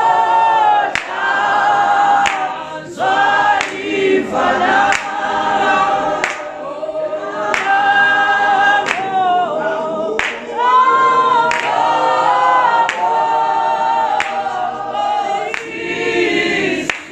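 A church choir or congregation singing together a cappella, with a sharp beat about every 1.3 seconds keeping time.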